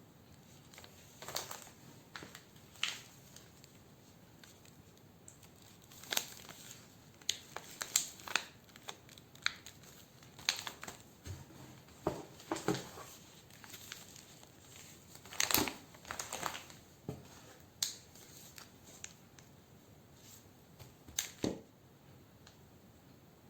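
Packaging being handled: irregular crinkling and rustling in short clusters, with a few sharper crackles.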